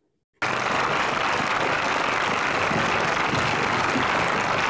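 Crowd applause that cuts in suddenly about half a second in and carries on steadily.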